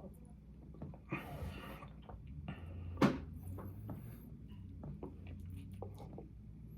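Close-up eating sounds: wet mouth clicks and chewing, with a short rustle a little after a second in and a sharp click about three seconds in, over a steady low hum.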